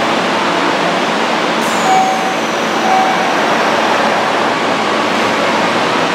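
Steady noise of a Yokohama Municipal Subway Blue Line 4000 series train standing at an underground platform with its onboard equipment running. A faint high whine sets in about a second and a half in and slowly falls in pitch. Two short tones sound about a second apart.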